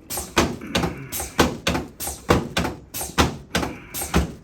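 A run of sharp thunks from chiropractic adjusting equipment, about two to three a second, as the patient is adjusted lying on his back.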